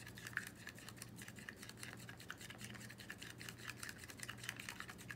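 Stir stick scraping around a small cup of yellow acrylic paint mixed with Floetrol pouring medium: a quick, irregular run of soft scratchy clicks.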